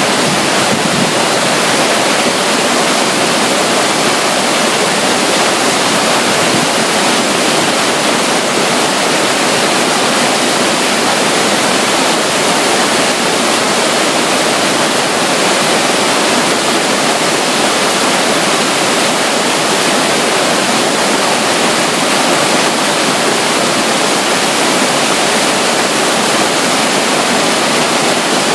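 Loud, steady rush of running water from a small flow of water spilling at the side of a river near a waterfall.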